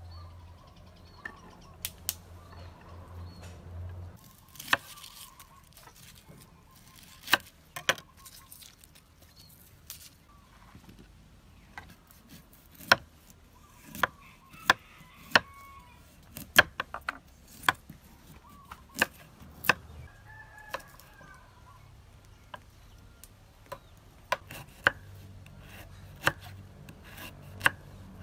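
Kitchen knife slicing through a root onto a wooden chopping board: irregular sharp knocks, sometimes several in quick succession. Chickens cluck now and then in the background.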